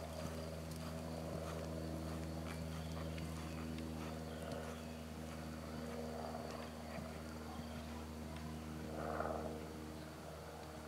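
A steady low hum with several even tones, under faint hoofbeats of a ridden horse moving on the sand footing of an arena; a brief louder sound comes about nine seconds in.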